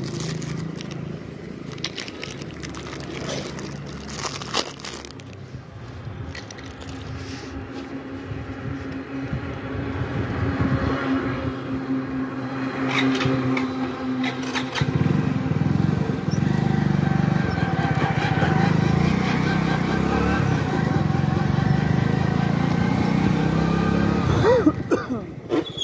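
Motorcycle engine idling, with a biscuit packet's plastic wrapper crinkling and tearing in the first few seconds. About fifteen seconds in, the engine gets louder as the bike pulls away and rides along the road.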